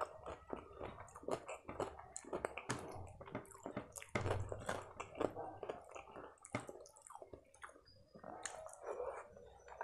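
Close-miked wet squishing and sticky clicks of fingers mashing and mixing cooked rice with dal tadka on a plate, with some chewing.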